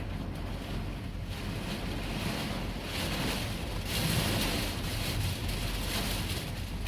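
Strong wind and heavy rain in a severe thunderstorm beating on a parked truck: a steady rushing noise that swells in a gust about three to five seconds in.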